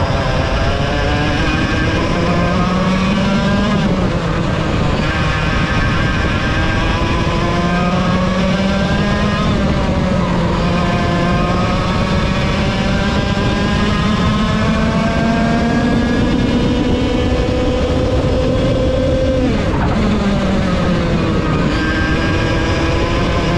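Vortex VLR 100cc two-stroke kart engine at racing speed, heard onboard. Its pitch climbs steadily on the straights and drops off sharply several times as the kart slows for corners, the longest climb ending in a steep drop about twenty seconds in.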